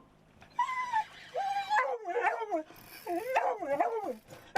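Excited dog whining and yelping in a run of high, wavering cries that rise and fall in pitch.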